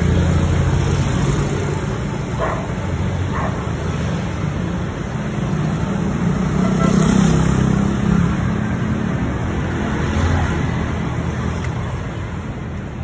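Motorcycle engine of a tricycle running steadily while under way, with road and wind noise; it swells a little around the middle.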